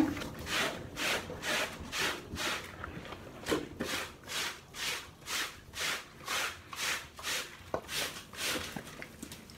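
Scrub brush scrubbing wet cloth rags by hand, in steady back-and-forth strokes about two a second, with a short pause about three seconds in.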